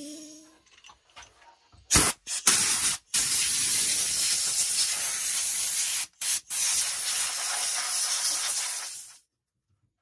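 Compressed air hissing from a hose blow gun aimed at an RC truck's chassis, in long blasts with a few short breaks where the trigger is let go; it starts about two seconds in and cuts off shortly before the end.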